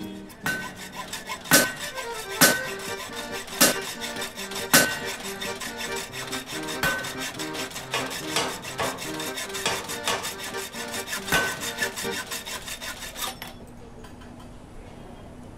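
Film background score: a percussive track of dense fast ticking, sharp accents about once a second and a stepping low melody. It stops abruptly near the end, leaving a faint steady low hum.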